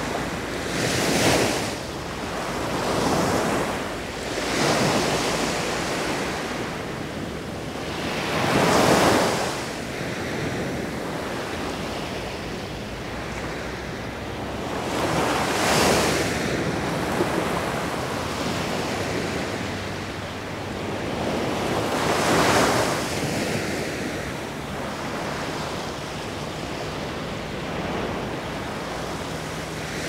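Sea waves washing onto a beach. Each wave swells into a rush of surf and fades again every few seconds over a steady hiss of water.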